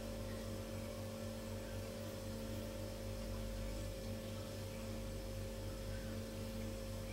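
Steady electrical hum with a faint hiss: mains hum in the room tone, with no other sound standing out.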